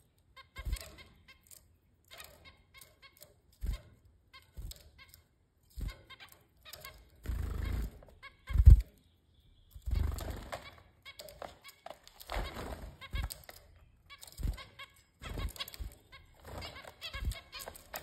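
Zebra finches feeding in a cage: irregular pecks and rustles among spinach and mint leaves, wing flutters, and short chirping calls, with one loud thump nearly nine seconds in.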